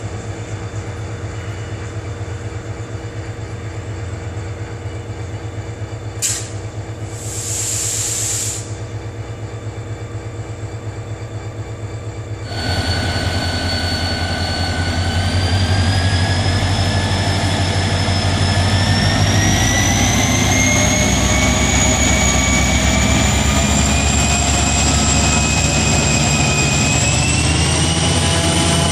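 A distant train's steady rumble with a brief sharp hiss of air about seven seconds in. About twelve seconds in it gives way to a KORAIL diesel-electric locomotive hauling a Saemaeul train, running loud, with a whine that rises steadily in pitch as it gathers speed past the platform.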